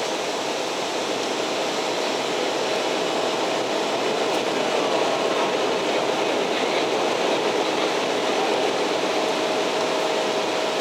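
Jet airliner cabin noise: the engines and airflow make a steady rumbling hiss with a steady whine, growing slightly louder a few seconds in.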